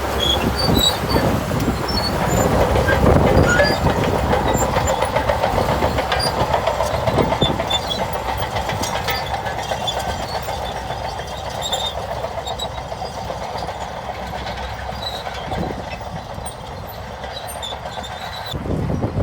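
Shantui crawler bulldozer at work: its diesel engine running under a dense clatter of steel tracks, slowly fading over the stretch.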